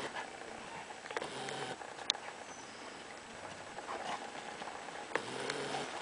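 Leonberger puppies scampering and tussling in snow: paws pattering and crunching, with scattered small clicks and a few brief louder scuffles.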